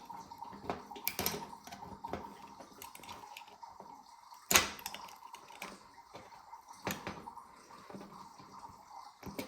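Light metallic clicks and taps of a small tool working on a snowblower carburetor's pilot jet, with one sharper click about four and a half seconds in; the jet is seized in a corroded carburetor and won't come out.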